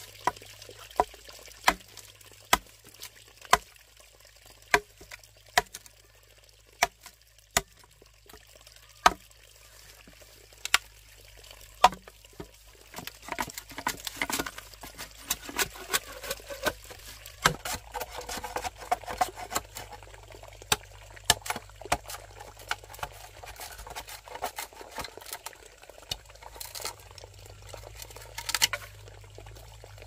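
Sharp knocks coming about once a second, unevenly spaced, for the first twelve seconds or so. Then a busier patter of lighter clicks and rustling, with a louder knock near the end.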